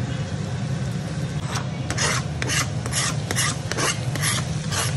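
Knife blade scraping chopped tomatoes off a plastic chopping board into the frying pan: a run of about eight quick rasping strokes starting a second and a half in, over a steady low hum.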